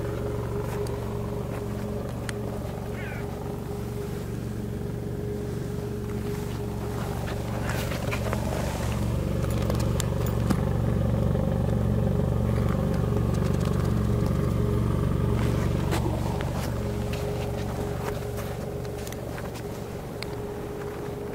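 2017 Mitsubishi ASX engine idling steadily, heard at the exhaust. It grows louder from about 8 seconds in as the microphone goes under the rear of the car beside the muffler and tailpipe, then eases back a few seconds before the end.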